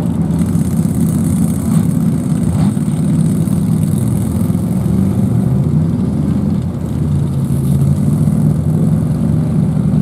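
Engine of a lifted 4x4 mud-bogging rig on oversized mud tires running steadily at low revs as it crawls forward, with a steadier, more even engine note from about seven seconds in.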